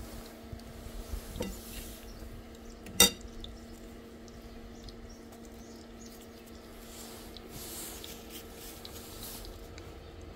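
A metal kitchen utensil knocking against cookware: one sharp knock about three seconds in, a lighter one shortly before it, and a few faint clinks, over a steady hum.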